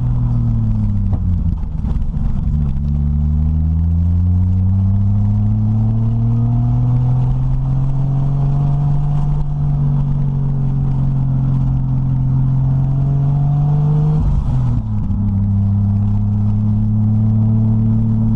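Turbocharged Toyota 1JZ straight-six in a 1936 Morris 8, heard from inside the cabin while driving. The engine note falls about two seconds in, climbs steadily under acceleration, falls sharply again about two-thirds of the way through, and then holds steady.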